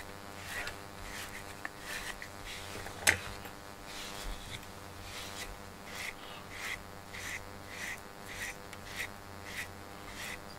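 Pink brush drawn repeatedly through a cat's fur, each stroke a short soft rasp, coming about one and a half to two times a second. A single sharp click sounds about three seconds in.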